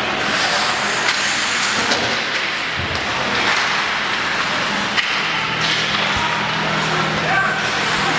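Ice hockey play heard from rinkside: skates scraping the ice, with sharp clacks and knocks of sticks and puck. A steady low hum starts about five seconds in.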